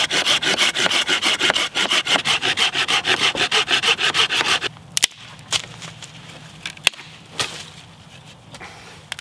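Folding pruning saw cutting through a thin green branch with quick back-and-forth rasping strokes, stopping about four and a half seconds in. A few sharp clicks follow.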